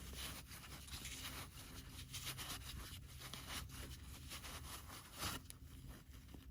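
Faint irregular rubbing and squeezing of a foam RC tire being worked by hand with traction compound, over a low steady hum.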